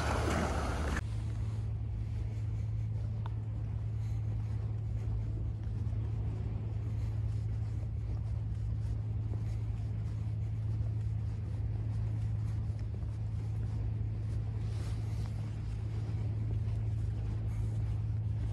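Small waves washing on a sandy shore for about a second, cut off sharply, then a steady low mechanical hum like an idling engine that stays even until the end.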